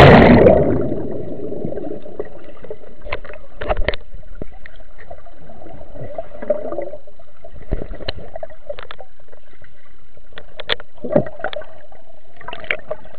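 A sports camera plunging into a swimming pool with a splash, then muffled underwater sound through the camera: a faint steady hum with scattered clicks and knocks.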